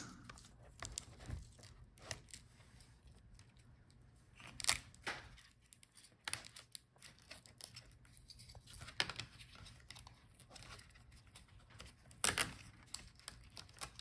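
Scattered light clicks and crackles of plastic and thin wire being handled as a laptop's speaker cable is pulled free of its routing clips and the speaker unit is lifted out. The sharpest clicks come about five seconds in and about twelve seconds in.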